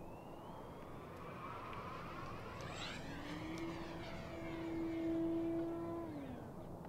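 Tower Hobbies ASW 28 2.0 m RC sailplane flying past: a rush of air that swells and fades, with a steady whine that rises a couple of seconds in, holds, and drops away near the end.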